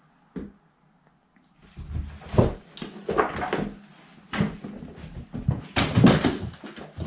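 Two cats play-fighting: an irregular run of scuffles and thumps as they grapple against a wall and a small wooden table on carpet. Near the end comes a louder clatter as they tumble among plastic ball-pit balls.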